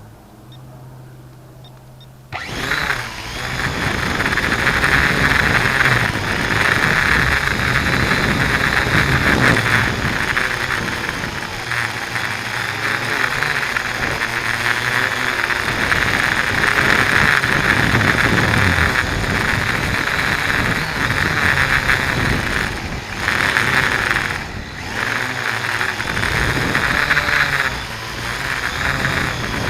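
Syma X8C quadcopter's motors and propellers whirring, heard through the onboard 808 keychain camera's microphone. The sound starts abruptly a couple of seconds in and runs loud and uneven, its pitch wavering, with wind buffeting the microphone.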